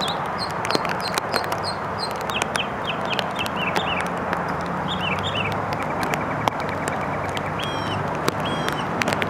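Small birds calling in quick series of short chirps, over a steady rushing background noise with scattered clicks.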